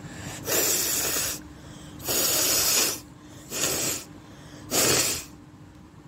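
A woman forcing air hard through her nose in four bursts, each under a second long, the kind of nasal blasts made when blowing or snorting to clear the nose.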